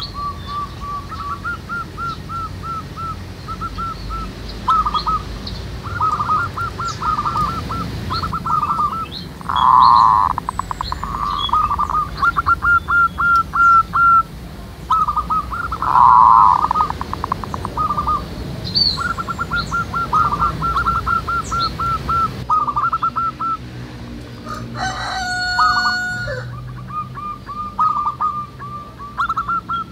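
Several zebra doves (perkutut) cooing, overlapping runs of quick repeated notes. About 25 s in, a different call with a fowl-like tone rises above them.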